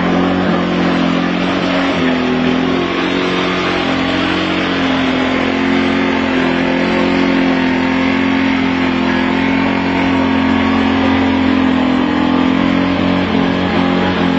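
KTM RC sport bike's single-cylinder engine held at high, fairly steady revs, with slight wavering, while its rear tyre spins against the tarmac in a circling burnout.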